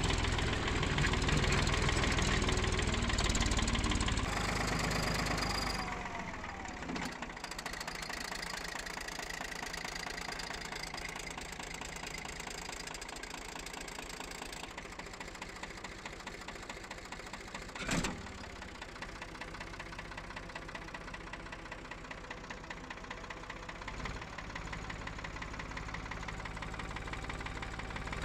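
Engine running at idle, loud for about the first six seconds and then quieter and steady, with a single sharp knock about eighteen seconds in.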